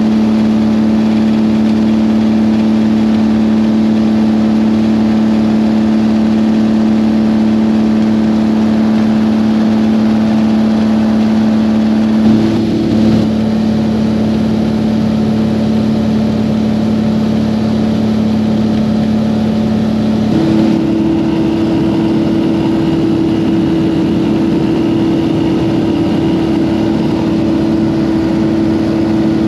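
Light aircraft's piston engine and propeller droning steadily in flight. Its note shifts about twelve seconds in and again about twenty seconds in.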